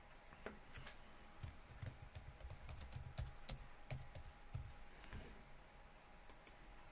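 Faint keystrokes on a computer keyboard: a quick, irregular run of clicks for about four seconds as a file name is typed, tapering off after that.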